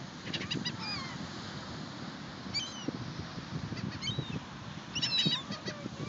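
A flock of gulls calling overhead, several short high calls at a time in clusters, the loudest cluster about five seconds in.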